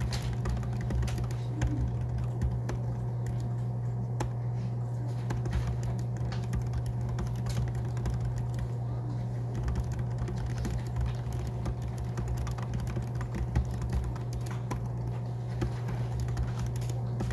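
Typing on a low-profile scissor-switch (pantograph) office keyboard: a steady run of light, irregular key clicks over a constant low hum.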